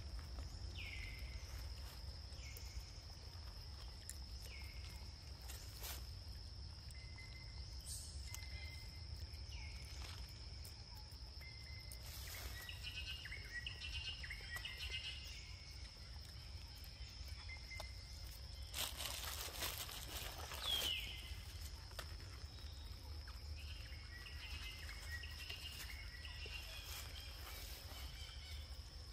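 Forest ambience: a steady high insect drone, with short falling chirps and bursts of high twittering calls, a few sharp clicks, and a louder rustling burst about two-thirds of the way in.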